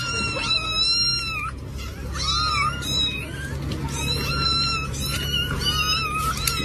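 Kittens mewing over and over, high thin cries coming about once a second, while they climb and beg for a treat held above them.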